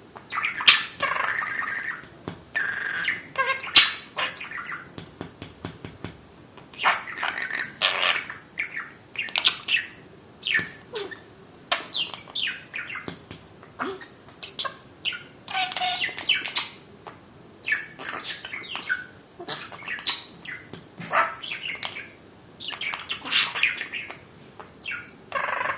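Pet budgerigar chattering at its mirror reflection: a steady run of warbles, chirps and squawks in short clusters, with small clicks among them.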